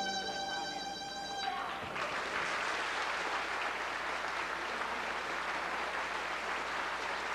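An old-time fiddle tune ends on a held note, and about two seconds in the audience breaks into steady applause.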